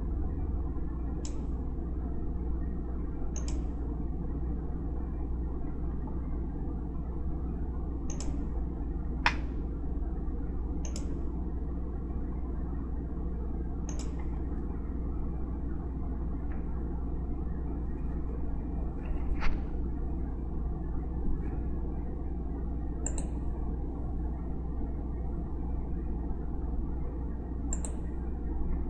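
Computer mouse clicking, about a dozen single clicks at irregular intervals, two of them sharper and louder near a third and two-thirds of the way through, over a steady low hum.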